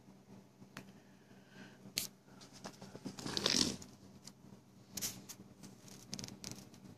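Handling noise: scattered small clicks and knocks, with a brief rustle about three and a half seconds in, over a low steady hum.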